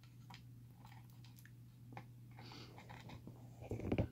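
Faint, scattered clicks and light handling noise of small padlock pins being picked over with tweezers, with a louder short sound just before the end.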